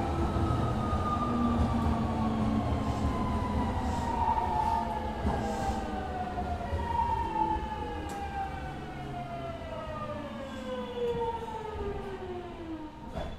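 Hitachi GTO-thyristor VVVF inverter and traction motors of a Kobe Municipal Subway 1000 series train whining under electric braking: several tones glide steadily down in pitch as the train slows, over the rumble of the wheels. The whine and running noise fade, and the whine cuts off with a click near the end.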